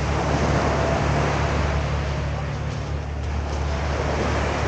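An engine running steadily with a low, even hum, over a continuous wash of outdoor noise.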